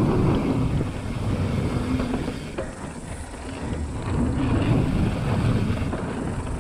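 Wind rushing over the camera microphone and mountain bike tyres rumbling over a dry dirt trail while riding, with a few light clicks and rattles from the bike.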